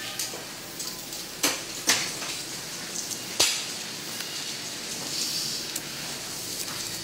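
A few sharp, light knocks and clicks, three of them standing out in the first half, over a faint steady hiss: small objects being handled and set down.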